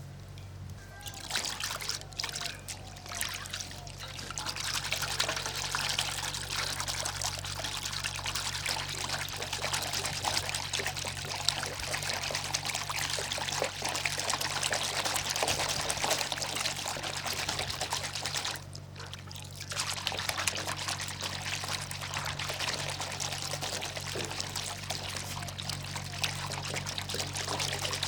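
Water pouring and trickling steadily into soapy, shampoo-foamed water. It starts about a second in and has a brief pause about two-thirds of the way through.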